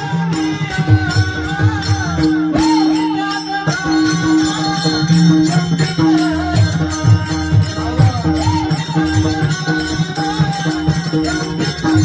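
Marathi devotional music: an ornamented melody that bends in pitch, over a steady held drone, with low drum strokes and a regular beat of sharp metallic strikes.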